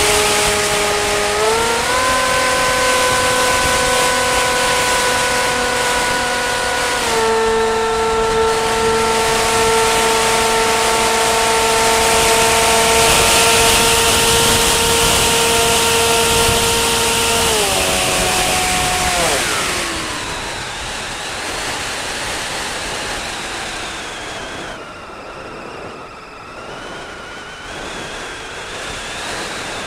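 Motor and propeller of the camera-carrying aircraft in flight, a steady pitched hum over wind rush. It steps up in pitch about two seconds in and dips slightly at about seven. About eighteen seconds in it throttles down, its pitch sliding away, leaving only wind noise on the microphone.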